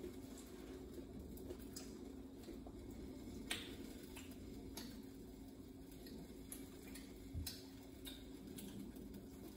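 Moong-dal batter frying in ghee under a lid on a gas burner: faint scattered crackles and pops over a steady low hum.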